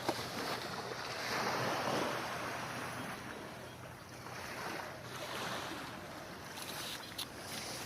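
Small waves washing ashore, the surf swelling and fading twice, with some wind noise on the microphone.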